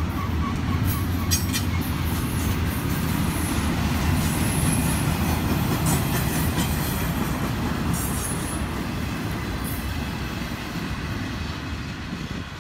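Intermodal freight train's container and trailer flatcars rolling past on the rails: a steady low rumble of wheels with a few brief high wheel squeals and metallic clanks, fading over the last few seconds as the final cars move away.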